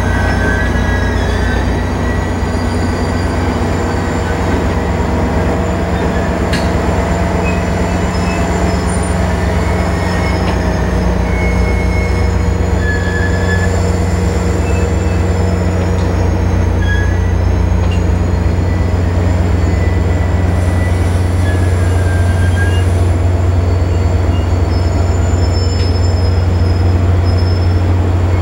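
Caltrain diesel locomotive idling close by: a steady low engine hum. A thin high whine wavers slowly up and down in pitch above it, with a few short high squeaks.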